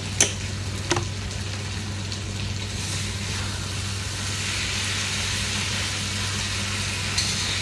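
Eggplant and bitter gourd sizzling in a wok while a spatula stirs them, the sizzle growing louder about three seconds in. Two sharp clinks near the start, from the sugar jar and its lid.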